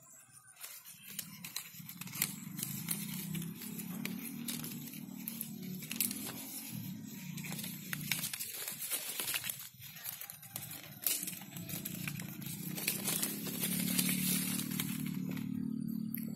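Leaves and twigs of a young water apple tree rustling and crackling as hands move through the branches, with a steady low drone underneath.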